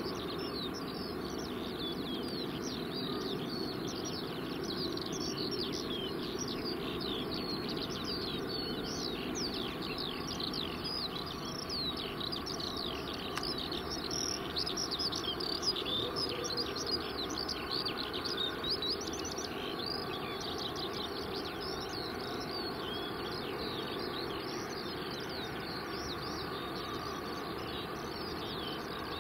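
Many small birds chirping and singing densely and continuously, over a steady low rumble from the Boeing 777-200LR's jet engines as the airliner rolls away down the runway.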